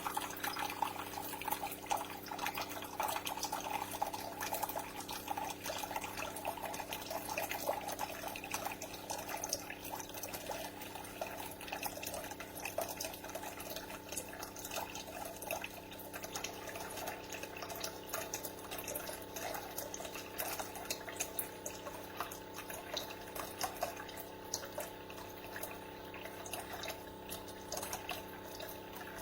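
Keurig K-Cafe single-serve coffee maker pouring a continuous stream of water from its spout into a cup. It runs on by itself after being switched on, with no brew selected: a fault in which the machine keeps dispensing and drains the whole reservoir.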